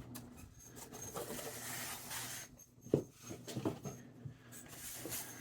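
Faint handling noises of cardboard packaging: light rustling and scattered small taps, with one sharper knock about three seconds in.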